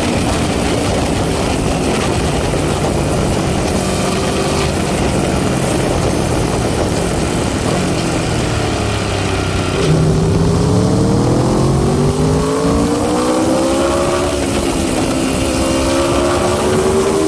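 Aprilia RSV4 RR's 65-degree V4 engine running, its revs sagging about halfway through and then climbing slowly, with another dip and rise near the end.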